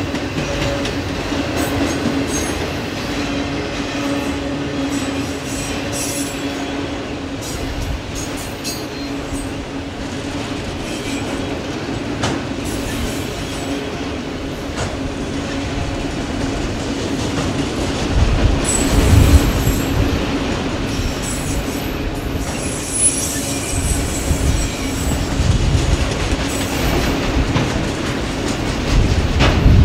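Autorack freight cars of a passing train rolling by at close range: steady wheel-on-rail noise with a constant tone running under it and scattered clicks. The low rumble grows louder about two-thirds of the way through and again near the end.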